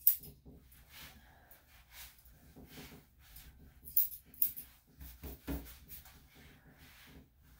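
Grooming scissors snipping a small dog's hair: a run of short, sharp snips at uneven intervals, the loudest right at the start. A duller thump comes about five and a half seconds in.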